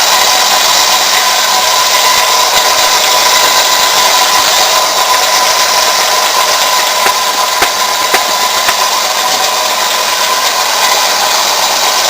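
Aldi Work Zone combination belt grinder and sander running, with a steady grinding noise and a steady whine.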